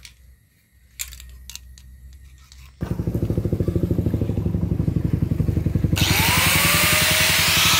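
A few light knocks, then a power grinder starts about three seconds in and runs with a fast, even pulsing. About three seconds later a loud hiss and a whine join in as it bites into the steel of the chainsaw-bar blade.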